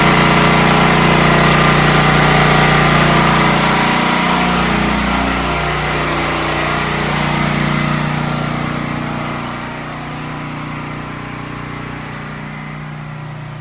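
Champion 9000-watt portable generator's engine running steadily, carrying a house load with a 3.5-ton central air conditioner. About nine seconds in it grows quieter and duller.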